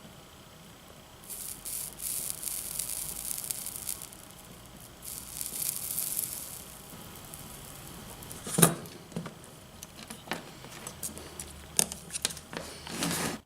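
Flux sizzling and crackling on a twisted copper wire splice as it is heated for soldering, in two spells of a couple of seconds each. Later come a few sharp clicks and knocks, the loudest about eight and a half seconds in.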